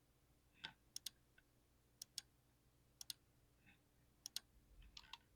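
Keys of a 60% keyboard clicking in slow, scattered keystrokes, several in quick pairs, with a short cluster near the end.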